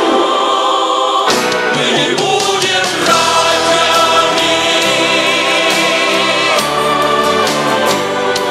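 A song: several voices singing together over a band with drums.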